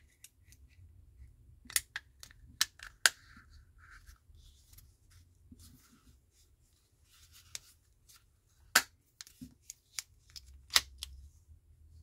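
Sharp plastic clicks and snaps from a flip-key remote shell being worked by hand, its spring-loaded key blade flipping and the shell pressed together. The loudest clicks come as three close together about two to three seconds in, then two more later, with lighter handling rustle between.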